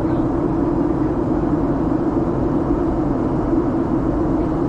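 Steady cabin noise of a Boeing 737-800 in flight, heard from inside the cabin: the constant drone of its CFM56 turbofan engines and rushing air, with a strong low hum.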